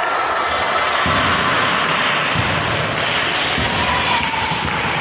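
Crowd noise in a sports hall between volleyball rallies: voices, scattered sharp claps or taps, and a few low thumps, all echoing off the hall.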